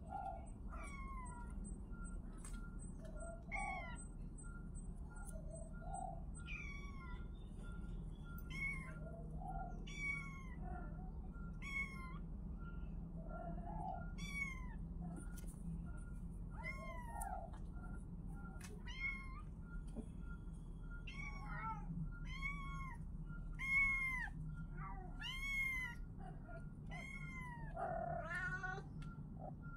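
Kitten meowing over and over in short, high-pitched mews, about one every second or two, coming faster toward the end.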